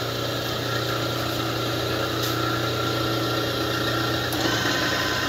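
Polamco TUG-40 geared-head engine lathe running steadily with its spindle set to 200 RPM: a steady hum from the 7.5 hp motor and headstock gearing, with a faint click about two seconds in and another about four seconds in.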